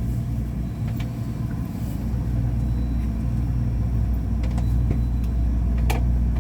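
Steady low rumble and hum inside a Ui-Sinseol Line driverless light-rail car, with a few faint clicks near the end.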